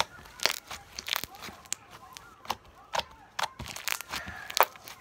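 Purple bead slime squeezed and kneaded by hand, giving irregular sharp crackles and pops as the beads crunch inside it.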